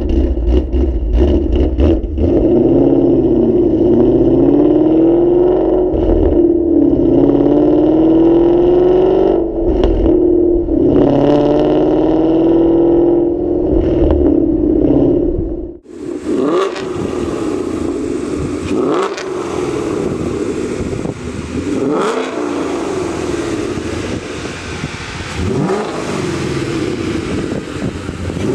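2015 Mustang GT's 5.0 V8 running through long-tube headers and a Corsa Xtreme cat-back exhaust. For most of the first half it pulls under load, its pitch climbing slowly and dropping back several times. About halfway through the sound cuts to another pass, where the exhaust is brighter and rasps through about four quick rises in revs.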